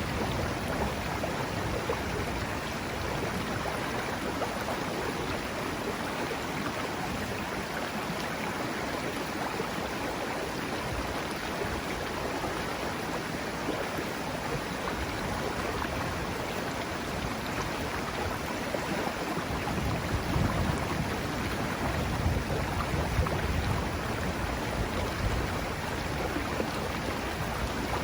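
River water running steadily over its bed, an even rushing noise, with low rumbles swelling about twenty seconds in.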